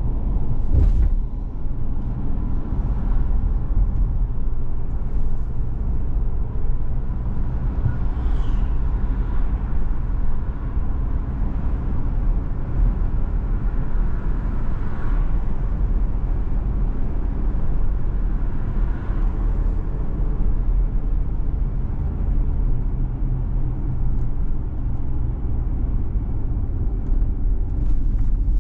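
Steady low rumble of a car driving along a road: engine and tyre noise, with a few faint clicks near the start and the end.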